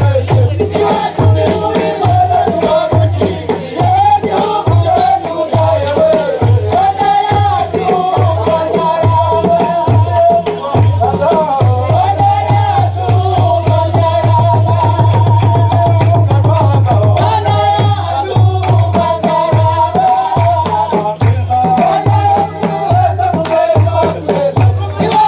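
Traditional Rwandan song performed live: a group of voices singing over a steady beat on traditional drums, the drumming running faster for a couple of seconds around the middle.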